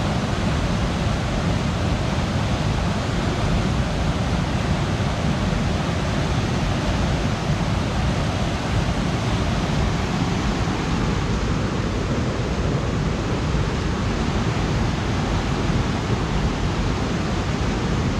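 Steady rush of water pouring over the small rocky ledge falls and rapids of the Natchaug River, an even, unbroken roar of whitewater.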